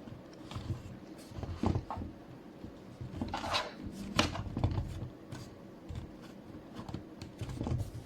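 Irregular clicks, knocks and rustles of objects being handled, the loudest a few seconds in.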